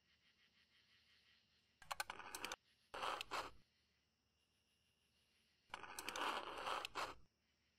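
Knife tip piercing and slitting aluminium foil stretched over a container, the foil crinkling and crackling in three short bursts, the longest near the end.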